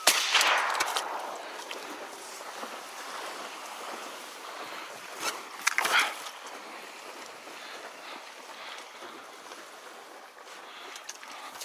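Steady outdoor wind and rustle by the microphone in a reed bed, with a loud sound fading away over the first second and a brief rustle about six seconds in.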